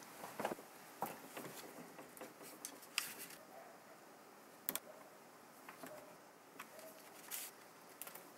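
Faint handling noise: thin thermostat wires rustling and a handful of sharp small clicks as they are worked into a plastic thermostat terminal block with a small screwdriver.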